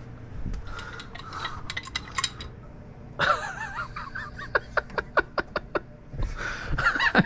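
Light metallic clinks and rattles of plumbing parts and tools being handled, followed partway through by a person laughing in a run of short bursts.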